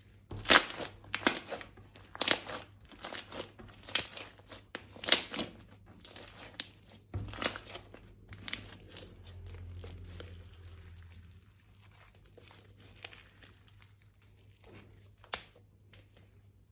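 Crinkling and crunching from slime-making materials being worked by hand. A run of sharp crackles, about one to two a second, fills the first half; then come fainter handling sounds and a single sharp click near the end.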